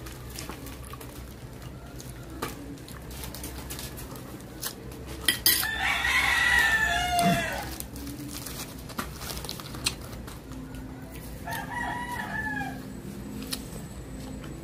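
A rooster crowing: one long, loud crow about six seconds in that falls in pitch at its end, and a shorter, fainter crow later. Scattered light clicks run throughout.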